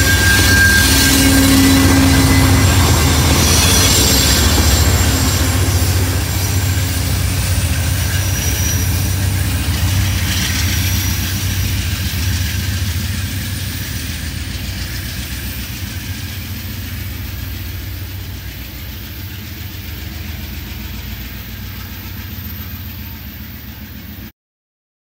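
Amtrak GE P42DC diesel locomotive pushing a departing passenger train past the platform, its engine running and the wheels rolling on the rails with a low rumble that fades as it pulls away. A brief high wheel squeal comes at the start, and the sound cuts off abruptly near the end.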